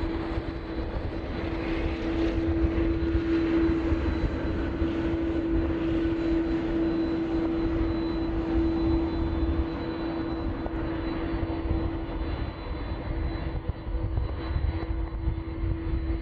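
Jet airliner engines running at taxi power: a steady low rumble with a constant droning tone.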